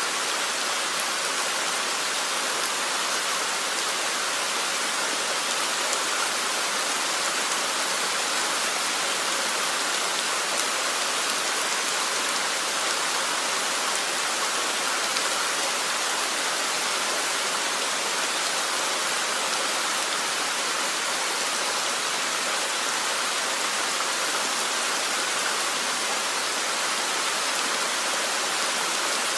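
Steady rain falling, an even hiss that holds the same strength throughout.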